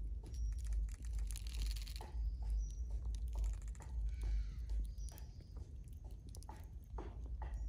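Irregular crackles and clicks of dry leaf litter being stepped on or disturbed, over a steady low rumble of wind on the microphone.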